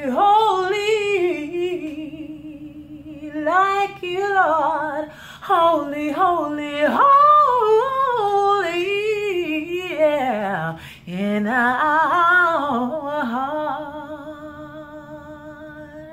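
A woman's solo voice singing wordlessly in a soulful style, with sweeping runs and slides. It ends on a long held note that fades away.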